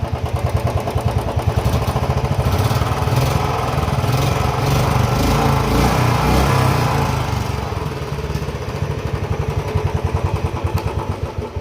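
Royal Enfield Standard Bullet 350's single-cylinder engine running, picking up speed in the middle and easing back toward idle near the end. A slight tik-tik tappet noise is present, which the mechanic puts down to an oil pump problem and faulty hydraulic tappets.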